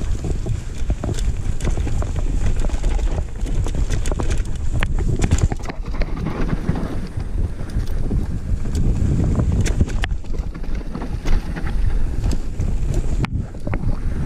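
Mountain bike descending a dirt singletrack: a steady low rumble of wind buffeting the microphone and tyres on dirt, with frequent sharp clicks and rattles from the bike over bumps.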